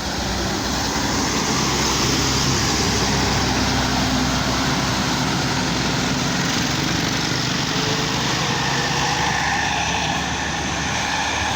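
Tour bus engine running as the bus drives past close by: a steady engine drone mixed with road noise.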